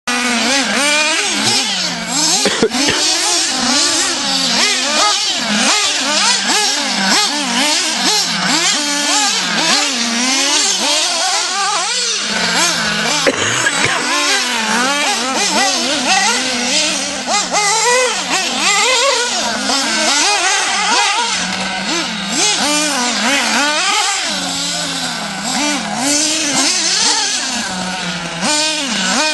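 Radio-controlled off-road car running, its motor whining up and down in pitch again and again as the throttle is worked, over a constant hiss.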